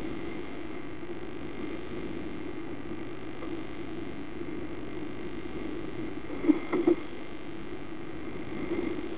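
Motor yacht's engines droning steadily under way, with three sharp knocks about two-thirds of the way through.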